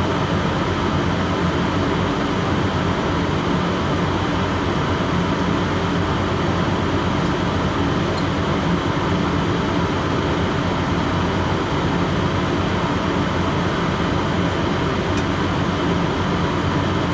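A ship's machinery droning steadily on deck: a constant low engine hum with a broad rushing noise over it and no change in pace.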